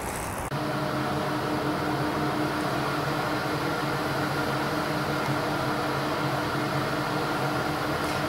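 Steady electric motor hum, with a low drone and a few steady tones, starting abruptly about half a second in after a moment of open-air noise.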